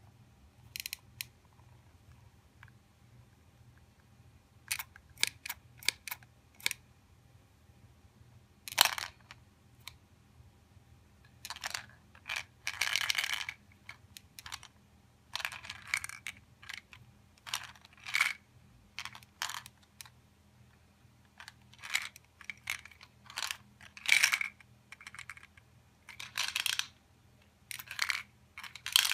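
Irregular sharp clicks, taps and short crunchy rattles: a hard plastic toy shark's jaws picking up candy-coated chocolates (M&M's), with the candies clacking against the plastic. A faint steady low hum runs underneath.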